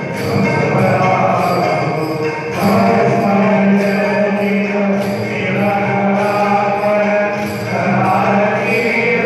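A group of voices chanting mantras together in long, held notes that shift pitch every few seconds. A faint, regular jingling runs along above the chant.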